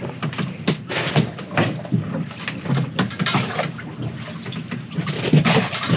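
Water lapping and slapping against the hull of a drifting boat in a series of irregular short splashes.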